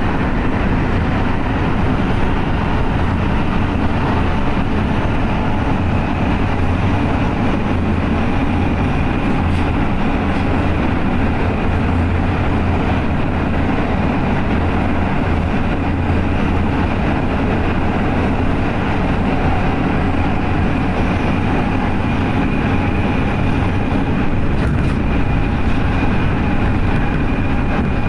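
Interior of an R143 subway car running at speed through a tunnel: a loud, steady rumble of wheels on rail and car noise, with a faint high whine now and then.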